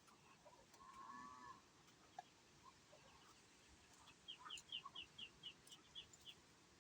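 Faint bird calls: one wavering call about a second in, then a quick run of about eight short, high chirps in the second half.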